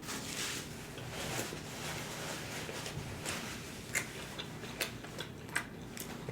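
Close-miked eating: a mouthful being chewed, with a soft crackle at first and then a few sharp, wet mouth clicks.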